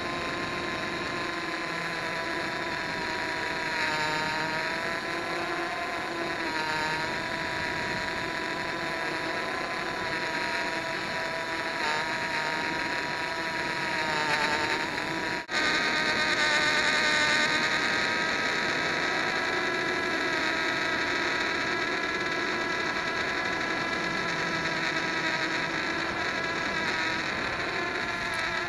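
Hubsan X4 quadcopter's small motors and propellers whining, picked up close by the camera mounted underneath it; the pitch wavers up and down as it flies. About halfway through the sound drops out for an instant and comes back louder.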